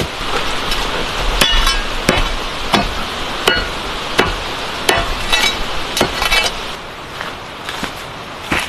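Hammer blows, roughly one every 0.7 seconds, some with a short metallic ring, as someone drives nails in building work.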